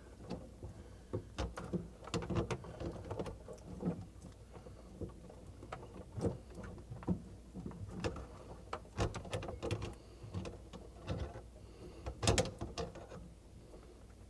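Irregular small clicks, taps and knocks of a wrench and metal plumbing fittings being handled and tightened under a sink, with a sharper clank about twelve seconds in.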